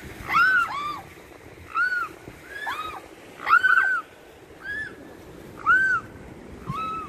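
Mute swan cygnets, about five months old, piping: about a dozen short, high whistles that rise and fall in pitch, sometimes two birds calling at once.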